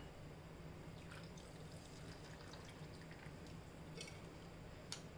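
Buttermilk poured and dripping from a plastic pouch into a bowl of semolina, faint, over a low steady hum, with a few faint ticks.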